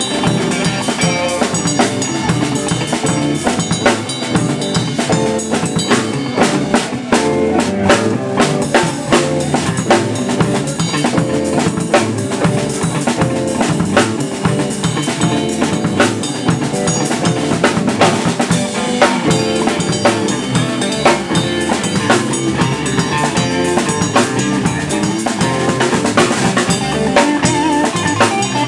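Live rock band playing: electric guitar chording over a full drum kit, with steady kick, snare and cymbal hits.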